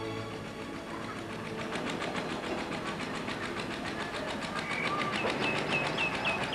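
Music fades out at the start. Then a rapid, even mechanical clatter sets in at about five beats a second and slowly grows louder, with a few short high chirps near the end.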